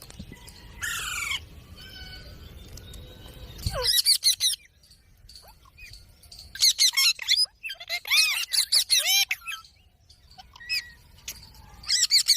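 Ringneck parakeet calling: several bursts of quick, sharp, high-pitched notes, with the longest run of repeated notes a little past the middle.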